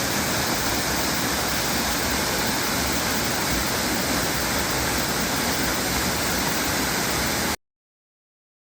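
Waterfall: a steady rush of falling water that stops abruptly near the end.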